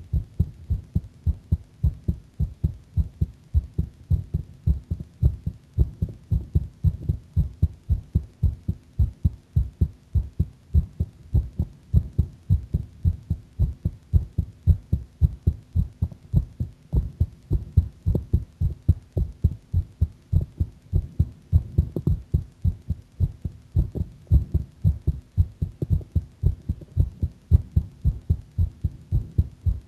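A girl's heartbeat, a steady, regular run of low thuds, beating a little fast.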